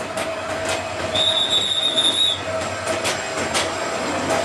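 Bangladesh Railway passenger train of white Chinese-built coaches rolling slowly past. Its wheels click over the rail joints under a steady whine, and a high squeal is heard for just over a second, starting about a second in.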